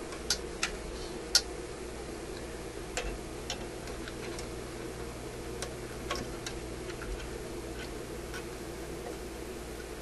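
Scattered sharp clicks and light taps of pliers against capacitor leads and the metal chassis of a vacuum tube radio, loudest in the first second or so and thinning out after about six seconds, over a steady low hum.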